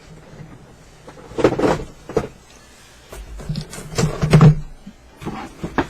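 Cardboard model-kit boxes being handled: a few rustles and light knocks as they are moved and set down.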